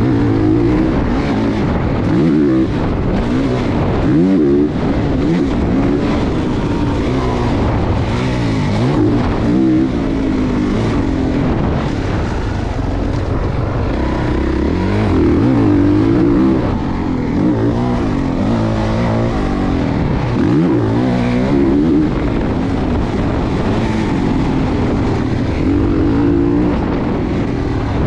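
Motocross dirt bike engine revving up and dropping back again and again as it is ridden hard around a dirt track.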